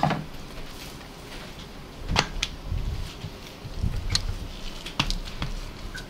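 Hands pressing and spreading oiled dough flat on a wooden board: soft dull thumps and scattered light knocks and taps against the board, with a sharper knock right at the start.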